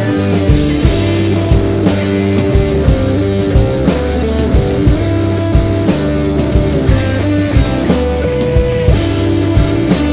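Rock music: guitars over a drum kit keeping a steady beat.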